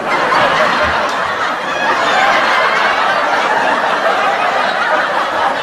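Crowd laughter: a dense, steady laugh track of many people laughing at once after a joke's punchline.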